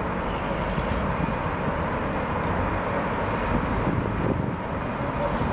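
Diesel bus engines running at a bus station as a single-decker bus pulls across, a steady engine and traffic rumble. A thin high-pitched squeal lasts about two seconds near the middle.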